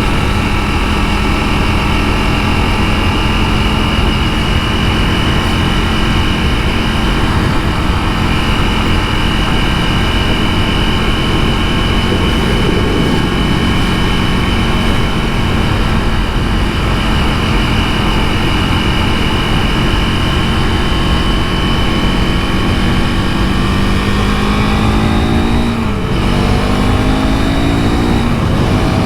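KTM 390 Duke's single-cylinder engine holding a steady cruise under wind rush. Near the end it revs up, drops briefly at a gear change, then revs up again through the next gear.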